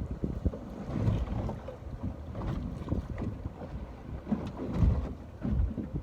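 Ocean water washing and lapping, with wind buffeting the microphone in irregular low gusts.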